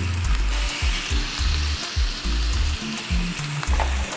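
Seasoned oxtails searing in hot oil in a stainless pan: a steady sizzle from meat laid on a very hot surface. A background music bass line runs under it.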